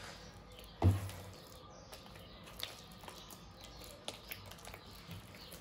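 Hands working water into a soft, wet sfenj dough in a bowl: faint sticky squishes and small clicks, with one dull thump about a second in.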